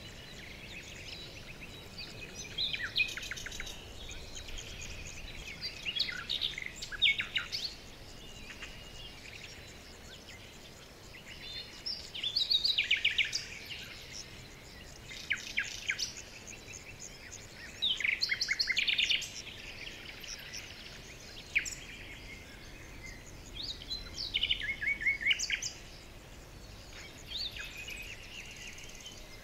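Songbirds chirping and singing in short bursts of rapid trills every few seconds, over a faint steady background hiss.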